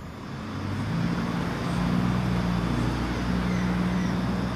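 Engines of a light-engine consist of three diesel freight locomotives running with a steady low drone as they approach, growing louder over the first second or two.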